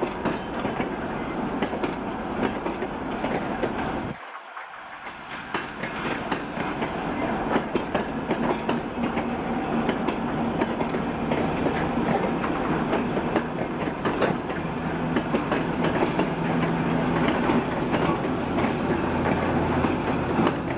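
DDB1 diesel train hauled by a 2M62U locomotive section pulling away, its wheels clicking over rail joints over a steady rolling rumble. The sound dips briefly about four seconds in. A steady diesel engine drone grows through the second half.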